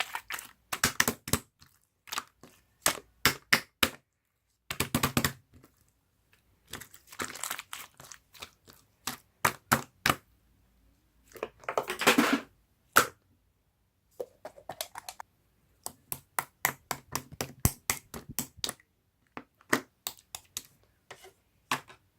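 Close, crisp crackling and crinkling in irregular clusters of sharp clicks with short silences between, loudest in a burst about halfway through.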